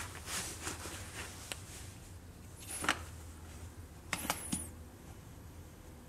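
Handling noise: a small pistol lifted out of a hard plastic gun case and set down, with a few light clicks, knocks and scrapes of polymer on plastic. The sharpest come near the middle and in a short cluster a little later.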